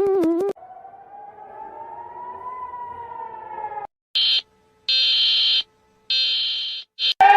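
Electronic emergency-alert alarm tones in sequence: a warbling alarm tone that stops about half a second in, then a fainter siren tone slowly rising and falling, then four short high-pitched beeps, and a siren starting to rise right at the end.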